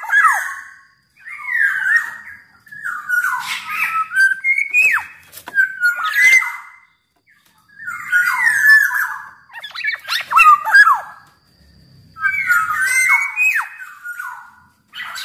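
Black-naped oriole (kepodang) singing: short phrases of fluty, sliding whistles mixed with harsher notes, one every second or two, with brief pauses about seven and twelve seconds in.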